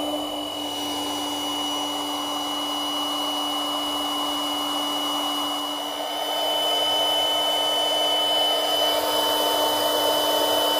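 Electric air pump running steadily, blowing air into a chamber of an Intex Excursion 5 inflatable boat. It gets a little louder about halfway through.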